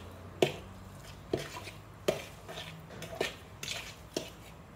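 A utensil stirring mashed potatoes in a bowl, knocking against the bowl five times, about once a second, with soft scraping between the knocks.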